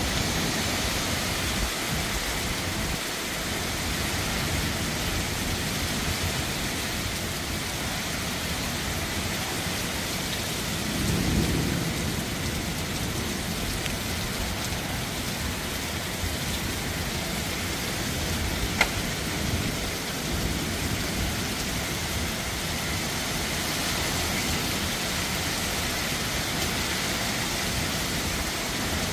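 Heavy thunderstorm rain pouring down steadily, with a low rumble of thunder swelling about eleven seconds in. A single sharp click comes a little past halfway.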